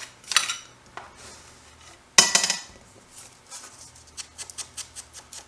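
Craft supplies handled on a tabletop while inking the edges of paper: a sharp clink a little over two seconds in, then a run of light, quick taps over the last couple of seconds.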